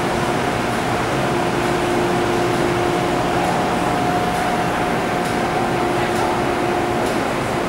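Steady air-conditioning and ventilation noise on an MTR underground platform, with a low steady hum that stops near the end.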